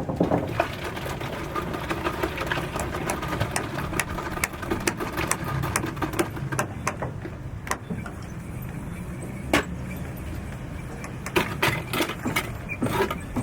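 A machine running steadily with a low rumble, with many sharp knocks and taps scattered over it.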